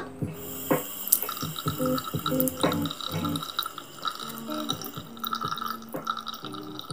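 Water splashing and dripping at a bathroom sink as a face is rinsed with cupped hands under the running tap, in irregular bursts.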